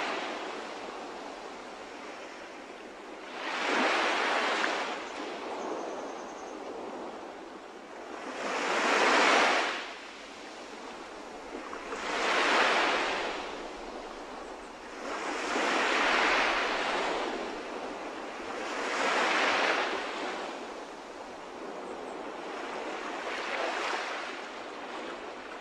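Ocean surf: waves washing in, the rushing noise swelling and fading about every three to five seconds.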